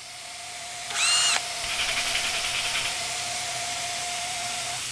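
Compressed-air hiss of a pneumatic 1K sprayable seam sealer applicator gun spraying a textured sealer bead. A faint steady whistle runs under the hiss, and a short high squeal comes about a second in.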